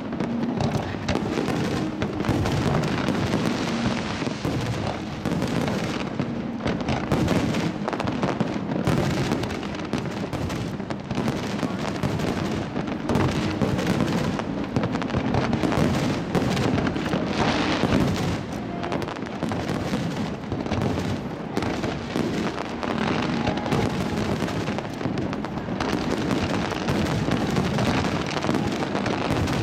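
Fireworks show in full barrage: shell bursts and crackle follow one another so densely that there is no pause.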